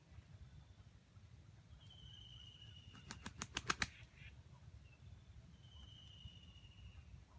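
A red junglefowl rooster flapping its wings: a quick run of about eight sharp wing claps in under a second, speeding up as they go, about three seconds in.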